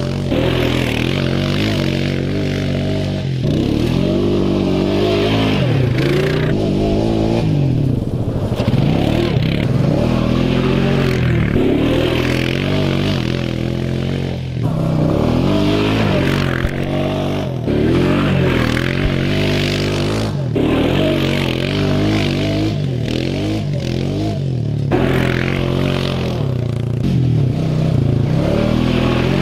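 Honda Foreman 420 quad bike's single-cylinder engine revving up and down again and again while it is drifted around a grass track, with bursts of tyres scrabbling and tearing through grass and dirt.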